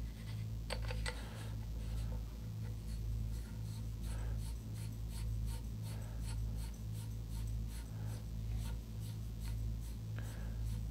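Metal front cap being screwed onto a suppressor tube by hand: light scraping and a run of small ticks from the threads, a little stronger about a second in, over a steady low hum.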